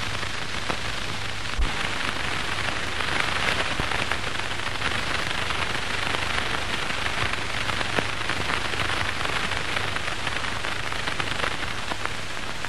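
Steady hiss and crackle of an old 1930s film's optical soundtrack, with a low hum and scattered faint clicks.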